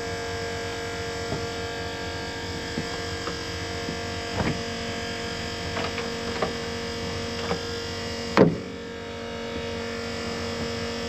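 A steady mechanical hum with scattered light clicks and a louder knock about eight seconds in.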